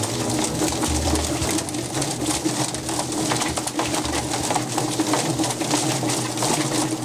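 Whizbang chicken plucker running: its 1 HP electric motor drives the spinning featherplate with a steady hum, while the bird tumbles against the rubber plucker fingers in quick, irregular knocks under a hiss of water spray.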